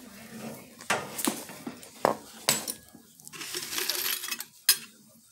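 Metal tools and parts clinking and knocking as they are handled: a few sharp separate knocks, with rustling about three to four and a half seconds in.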